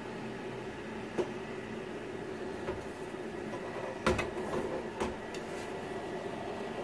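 Cooling fans of two stacked Cisco Catalyst 3750G switches running steadily just after boot, a hum with a faint high whine. Three short knocks, the loudest about four seconds in, as the metal switch cases are handled and the top one lifted.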